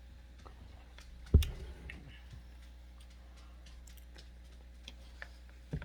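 Scattered light clicks and taps of cutlery on plates during a meal, with a sharp knock about a second and a half in and another near the end.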